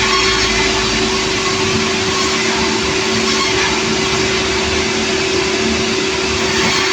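Sawmill machinery running steadily and loudly, a constant mechanical drone with a steady hum.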